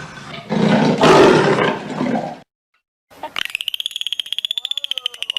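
An animal roar that breaks off about two and a half seconds in. After a brief silence comes a rapid, high-pitched pulsing trill of an animal call, at many pulses a second.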